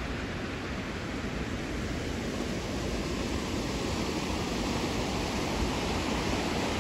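River water rushing through a rocky gorge and over rapids: a steady rushing noise that grows a little louder toward the end.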